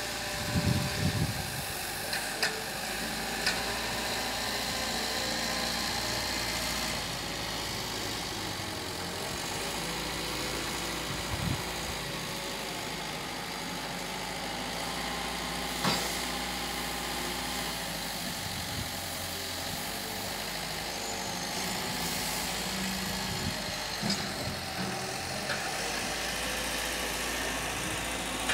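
Diesel machinery running steadily, with a few short sharp knocks now and then.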